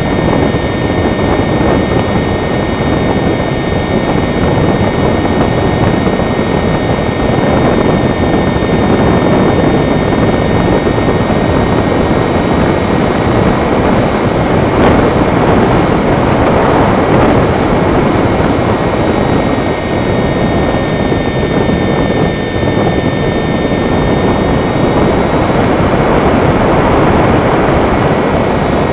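Electric motor and propeller of a foam HobbyKing Fox model glider whining steadily under power, heard from on board the model, with heavy wind noise on the microphone.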